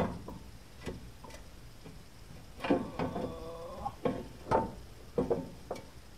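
Scattered clicks and knocks of tools and parts being handled under a car during oil pan work, about half a dozen over the stretch, with a short wavering pitched sound about three seconds in.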